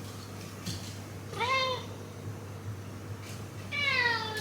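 A cat meowing twice: first a short meow that rises and falls, then a longer one near the end that slides down in pitch.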